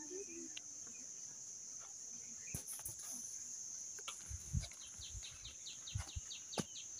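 Steady high insect drone outdoors, joined in the second half by a rapid run of short, high chirps at about five a second, with a few soft low thumps.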